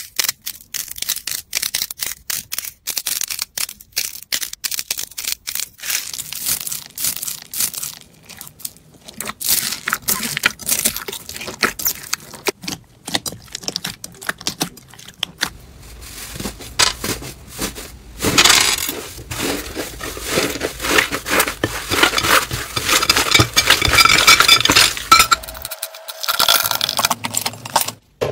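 Crunchy slime being squeezed and pressed by hand, rapid crackling and popping clicks as the beads and air pockets in it are squashed. The crackling is densest from about two-thirds of the way in to near the end.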